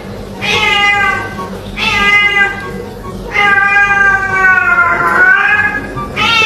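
Domestic cat meowing loudly and insistently, about five drawn-out meows in a row, the longest in the middle lasting nearly two seconds and bending in pitch.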